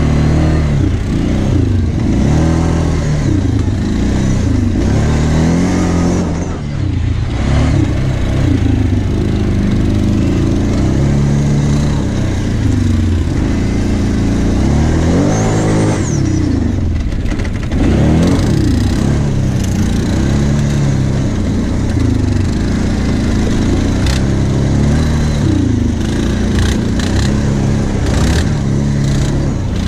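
Kawasaki Brute Force 750 quad's V-twin engine running under load, its pitch rising and falling every second or two as the throttle is worked over a bumpy sand trail.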